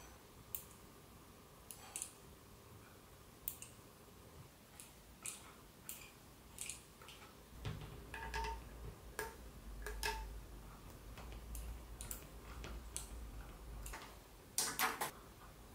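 Scattered light metallic clicks and taps from a miniature four-coil solenoid boxer engine being handled and its parts touched. A low rumble joins from about eight seconds in, and a brief flurry of louder clicks comes near the end.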